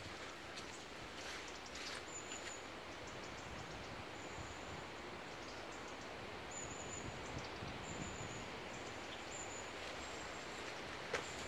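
Steady outdoor background noise with a few faint rustling footsteps in the first couple of seconds.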